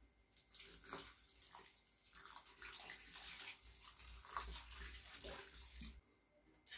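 Soda poured from a plastic bottle in a thin stream into a frying pan of popcorn kernels already standing in liquid, splashing steadily; the pour stops about six seconds in.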